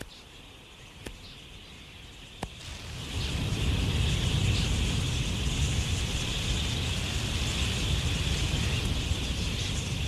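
A large flock of wild budgerigars: a dense, steady wash of massed chattering with a low rush beneath it. It swells in about three seconds in, after a quieter start broken by two faint clicks.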